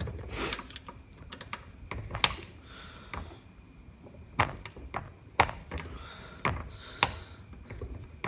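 Screwdriver and small metal motor parts clicking and knocking during hand disassembly of an electric motor: about a dozen sharp, irregular knocks and taps.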